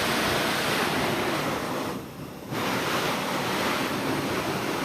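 Waterfall's steady rush of falling water, with a brief dip in level about two seconds in.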